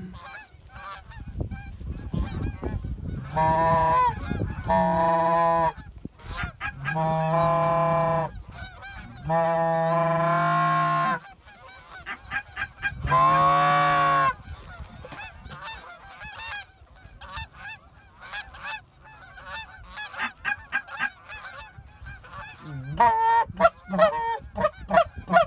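A large flock of geese honking overhead, with many short honks throughout. Five long, drawn-out steady notes fall between about 3 and 14 seconds in, and a burst of louder honking comes near the end.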